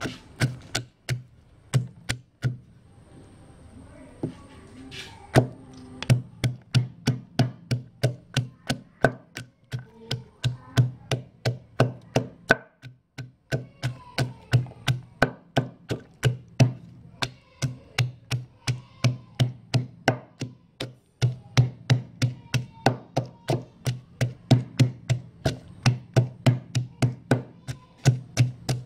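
Wooden pestle pounding chilies and garlic in a mortar: a few scattered strikes, then a steady beat of dull thuds about two to three a second, broken by short pauses.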